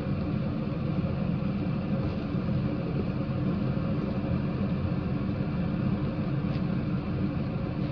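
Prawn and cabbage fried rice being stirred in a metal pan with a wooden spatula, over a steady low rumble; one soft click about six and a half seconds in.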